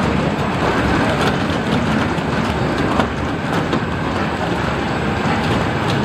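Potato grading and sorting line running, potatoes tumbling and knocking over its belts and spiral rollers in a steady, dense rattle of small knocks.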